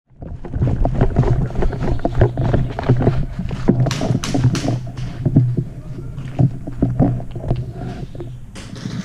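Close handling and movement noise on a body-worn camera: irregular knocks and rustling over a low rumble, with a quick run of sharp cracks about four seconds in and again near the end.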